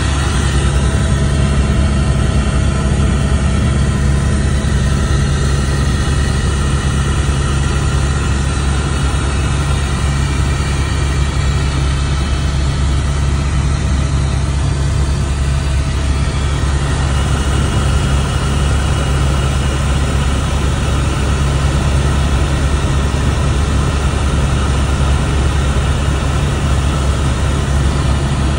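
Helicopter in flight heard from inside the cabin: the rotor and turbine engine make a loud, steady low drone.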